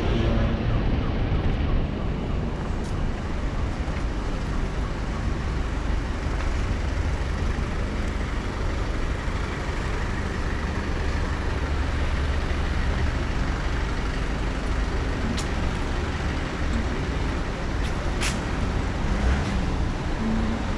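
City street traffic: a steady low rumble of passing vehicles, with a few brief sharp clicks.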